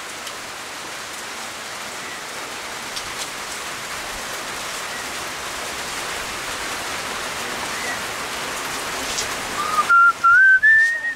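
Steady hiss of rain falling, with a few faint drips. About ten seconds in, the rain noise cuts off suddenly and a person whistles a short tune of rising, stepped notes.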